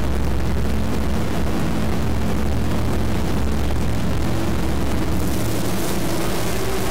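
Loud, deep, steady rumble, heavy in the bass, with a few held low tones under it. The higher sounds drop away as it begins.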